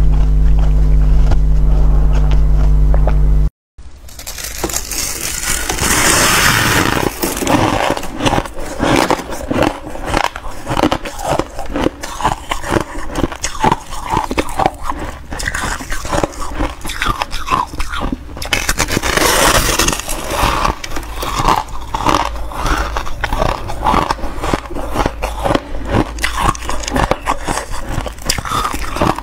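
A steady low hum for about the first three and a half seconds, cut off abruptly. Then a long run of close, irregular crunching and scraping of packed freezer frost.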